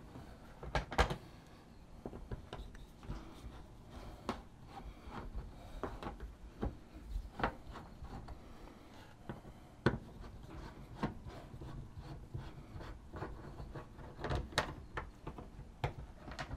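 Hand screwdriver working screws out of a Cessna 172's aluminum fuselage skin: irregular small clicks, scrapes and knocks of the tool on the screws and metal, a few louder knocks about a second in, near the middle and near the end.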